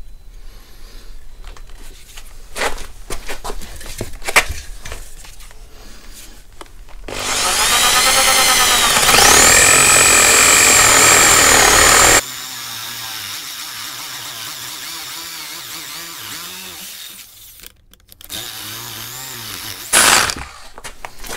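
Corded electric drill with a spade bit boring a hole down into a wooden log, after a few light knocks as the bit is set in place. About seven seconds in the motor spins up with a rising whine and runs loud and high-pitched as the bit cuts. It then drops abruptly to a quieter steady running.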